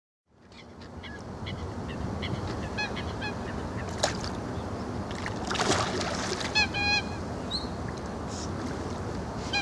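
Water birds honking in short groups of repeated calls, clearest about three seconds in and again near seven seconds, over a steady low rumble from the boat's motor as it trolls.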